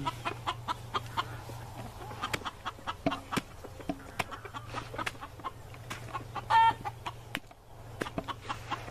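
Backyard chickens clucking in short, scattered notes, with one louder squawk about two-thirds of the way through.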